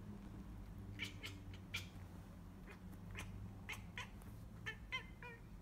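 Bengal cat chattering at a pigeon it is stalking: a scatter of short, clicky chirps in small clusters, a few breaking into brief trills.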